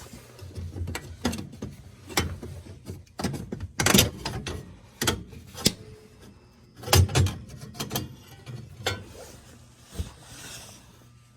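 Irregular clicks, knocks and rubbing from parts of a gas-fired steam boiler being handled while the technician checks whether the pilot is lit, with a faint low hum underneath.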